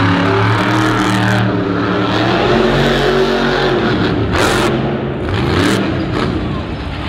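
Monster truck's supercharged V8 revving and easing off as the truck drives across the dirt and launches up a ramp, engine pitch rising and falling. Two short noise bursts break in about halfway through.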